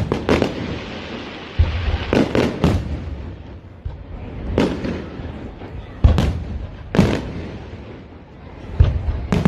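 Fireworks display: aerial shells bursting in sharp bangs, roughly one a second and some in quick pairs, with a low rumbling echo between them.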